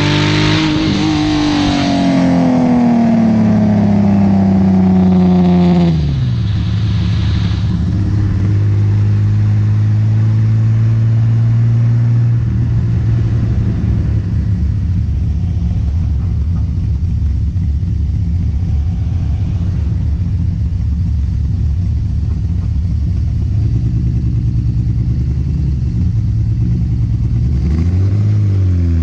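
Datsun 280Z's custom-built L28 straight-six, breathing through an Abarth 240Z muffler. The revs fall away from high over the first six seconds and it settles into a steady low idle, then it is blipped again near the end.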